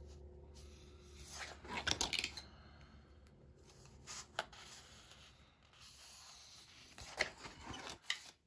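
Paper rustling as coloring-book pages are turned over, with a loud rustle about two seconds in, a short one in the middle and another cluster near the end.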